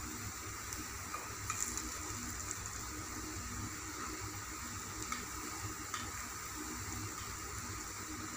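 Hot oil sizzling and bubbling steadily as a batch of chayote pakodas deep-fries in a kadai, with a few light clicks of the metal skewer against the pan as they are stirred.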